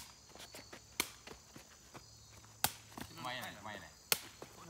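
Four sharp knocks, unevenly spaced about a second or more apart, over the steady high-pitched drone of crickets.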